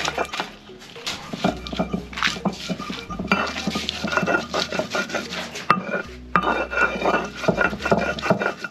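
Hand grinding stone worked back and forth over a flat stone slab, crushing and scraping fresh green peppers and onion into a paste. It makes a rapid run of gritty rasping strokes that pauses briefly twice.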